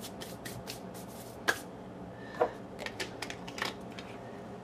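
Light, dry ticks and clicks from a small glass spice jar being handled as dried thyme is sprinkled into the pot, with a few louder clicks about a second and a half in, at about two and a half seconds, and a short cluster around three seconds.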